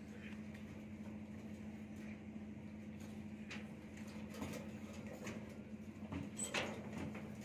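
Binding wire being twisted tight around steel rebar crossings: scattered light metallic clicks and scrapes, with a few sharper clicks about halfway and near the end, over a steady low hum.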